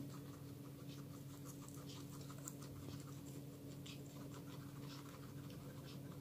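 Guinea pigs chewing raw pumpkin and cabbage: a fast run of small crunching clicks over a steady low hum.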